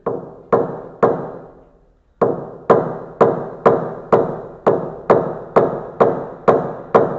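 Paintless dent repair hammer tapping on a car's sheet-metal body panel, knocking down high spots of the dent. Sharp taps about two a second, each ringing briefly: three, a pause of about a second, then a steady run of about a dozen more.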